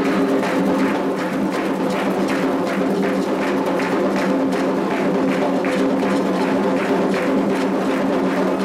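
Candomblé ritual percussion music: fast, even drum and wood-like strokes at about four a second over steady held tones.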